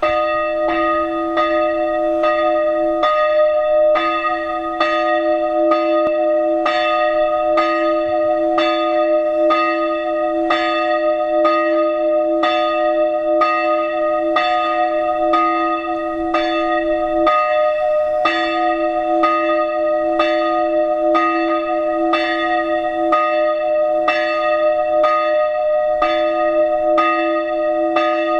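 Church bells pealing in a steady, even run of strokes, about three every two seconds, their tones ringing on between strokes.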